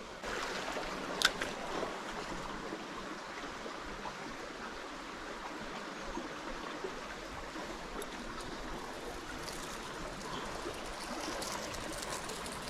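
Stream water flowing steadily, with a single sharp click about a second in and a few light ticks near the end.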